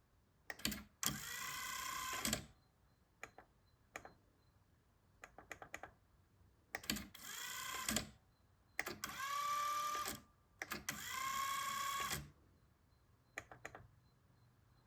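Onkyo TA-2800 cassette deck's transport and controls clicking, with four short stretches of a steady tone that rises in pitch at the start of each and holds for about a second before cutting off, as the deck's Auto Accubias calibration fails to start.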